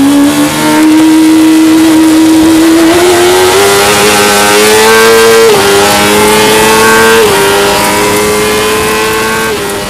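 Fisher Fury sports car's engine at speed, heard from the open cockpit with wind rush, its note climbing slowly, with two brief dips in pitch about five and a half and seven seconds in. The sound grows fainter over the last few seconds.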